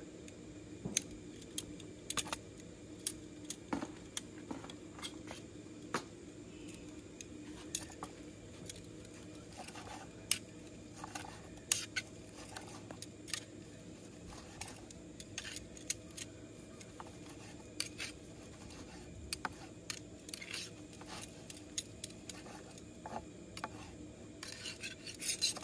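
Scattered sharp clicks and light metallic clinks, irregular, as of utensils being handled while slicing and serving meat, over a faint steady hum.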